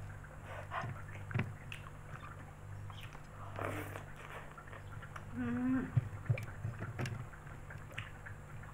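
Close-up mouth sounds of eating spaghetti by hand: wet chewing and lip smacks, a slurp of a noodle strand about halfway through, then a short hummed "mm" soon after. A steady low hum runs underneath.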